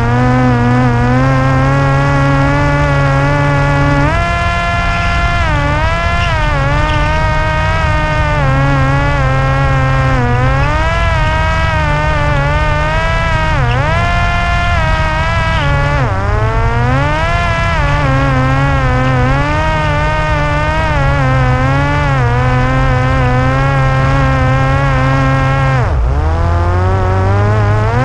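Parrot Disco fixed-wing drone's electric pusher motor and propeller buzzing steadily in flight, its pitch rising and falling as the throttle changes. The pitch dips sharply a couple of seconds before the end, then climbs again.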